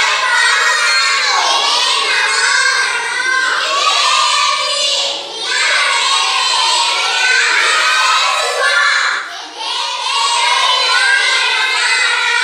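A group of schoolchildren reciting phrases together in a loud, sing-song chant, in phrases a few seconds long with short breaks between them. The phrases are Malayalam.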